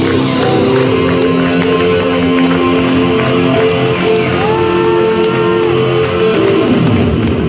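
Live band playing the closing bars of a song: steady held chords that die away about six and a half seconds in.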